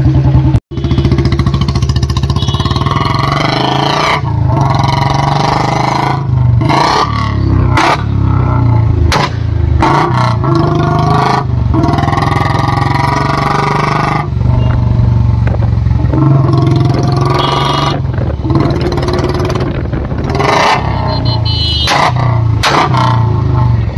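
Royal Enfield Bullet 350's single-cylinder engine exhaust through an aftermarket long Punjab silencer while the bike is ridden, the exhaust note rising and falling with the throttle and dipping briefly several times.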